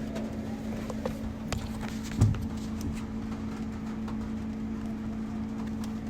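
Scattered raindrops tapping over a steady low hum, with a single louder thump about two seconds in.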